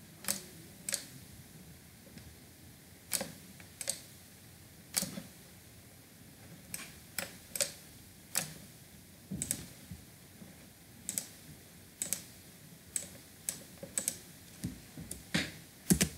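Irregular sharp clicks of a computer mouse and keyboard, roughly one or two a second, with a louder pair near the end.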